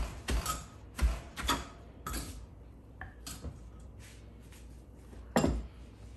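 Wooden pestle pounding shredded green papaya in a terracotta mortar: a quick run of dull thumps for the first two seconds or so, then lighter knocks, and one more heavy thump near the end.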